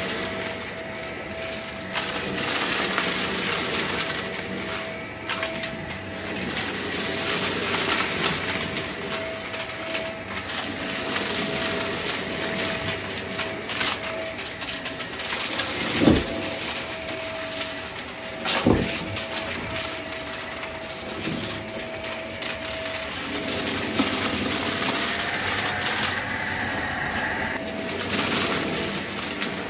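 Shark cordless stick vacuum running over carpet, its motor whine steady while small hard debris rattles and clatters up through the floor head and tube. Two sharp knocks come a few seconds apart just past the middle.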